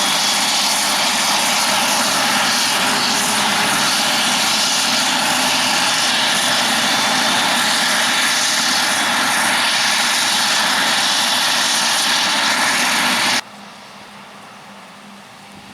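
Heavy farm harvest machinery running loud and steady with a strong rushing hiss. It cuts off abruptly about thirteen seconds in, leaving a much quieter steady engine hum.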